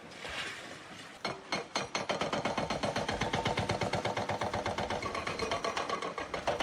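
Demolition machinery at work: a fast, steady hammering of about six to seven knocks a second over a running engine. It starts about a second in.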